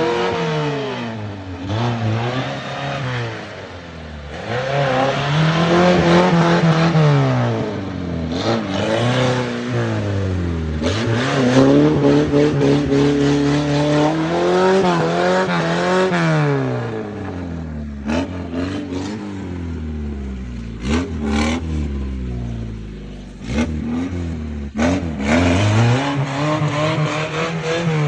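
Off-road vehicle's engine revving up and down again and again under changing throttle, with a series of sharp knocks and clatter in the second half.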